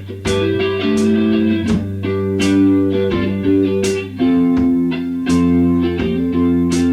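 Music: electric guitar playing sustained chords and picked notes, with the harmony changing about four seconds in.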